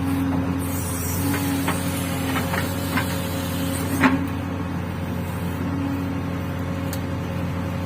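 JCB 3DX backhoe loader's diesel engine running at a steady speed, with a few sharp knocks, the loudest about four seconds in.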